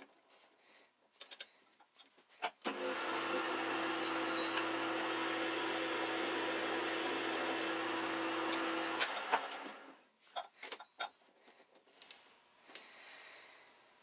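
Small bench lathe running steadily for about six seconds while a center drill cuts a center hole in the end of a steel pin held in the three-jaw chuck, then switching off. Light metal clicks of the part and chuck being handled come before and after.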